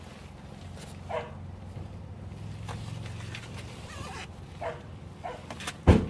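Shelter dogs barking and yelping now and then over a low steady hum, with one loud thump just before the end.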